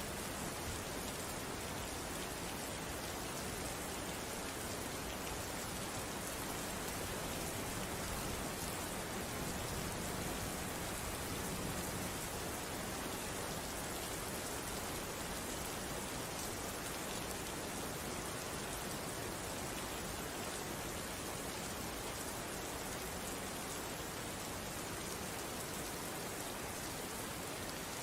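Steady rain falling, an even patter of raindrops on a surface.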